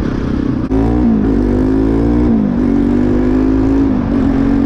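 Modified Bajaj Pulsar NS200's single-cylinder engine under way: it gets suddenly louder about a second in and its note climbs, dips briefly about halfway through, then holds steady, over low wind and road rumble.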